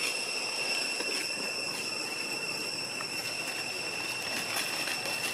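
Steady, high-pitched insect drone from the surrounding trees, one unbroken whine. Faint rustles from the dry leaf litter can be heard over it.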